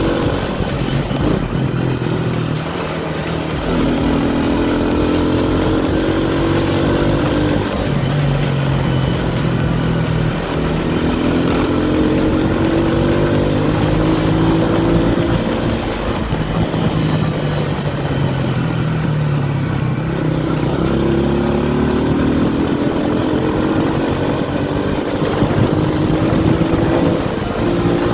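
Honda Dream 100's small single-cylinder four-stroke engine running under way as the bike is ridden, its pitch rising and dropping back several times as the rider speeds up and eases off.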